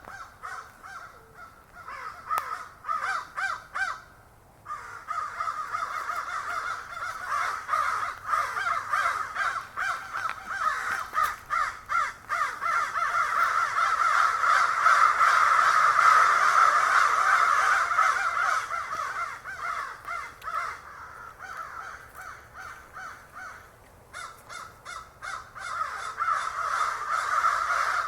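A flock of crows cawing, many harsh calls overlapping, with a short lull about four seconds in. The cawing builds to its loudest around the middle, thins out, then picks up again near the end.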